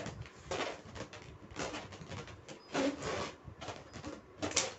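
Hands squeezing and pressing a fully inflated latex balloon, which gives a run of short noisy rubbing sounds, about one a second, as the balloon is strained toward bursting. The balloon does not pop.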